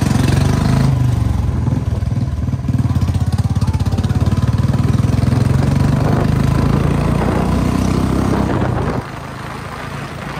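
Royal Enfield Bullet 350's single-cylinder engine running as the motorcycle is ridden, with a steady, even beat, falling quieter about nine seconds in.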